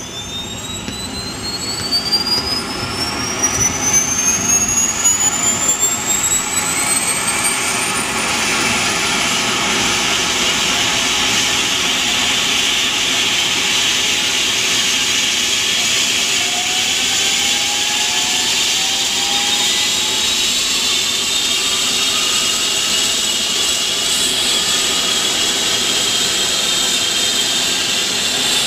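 Turbine engines of a Eurocopter EC135 air-ambulance helicopter spooling up at start-up: a high whine that rises in pitch and loudness for about eight seconds, then settles into a steady high-pitched whine.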